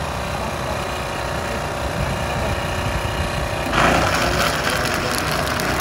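A steady engine-like hum, then about four seconds in an electric blender starts up and whirs loudly, blending falsa berries into juice.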